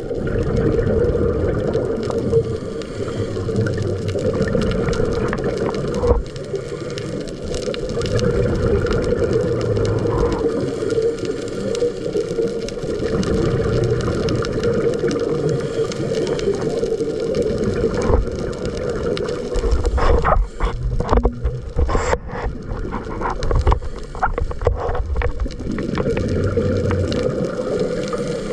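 Muffled underwater rumble of water rushing past a diver's camera in its waterproof housing, carried along in a drift-dive current. A cluster of short clicks and knocks comes about two-thirds of the way through.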